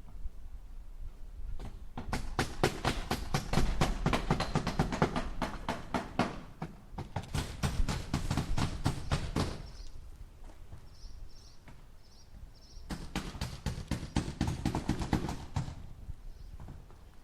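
Hammer driving nails into wood in quick runs of blows, about five strikes a second, in three bursts with pauses between.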